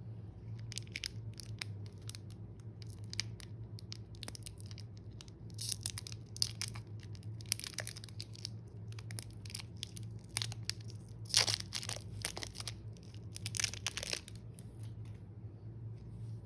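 Slime being kneaded and stretched by hand, giving irregular sticky crackles and pops that come in two denser runs, over a steady low hum.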